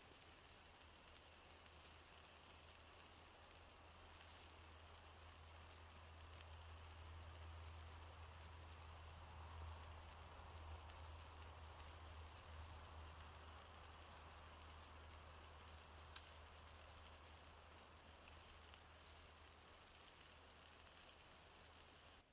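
Food sizzling on a grill over hot coals: a steady hiss with a few faint crackles and a low hum underneath.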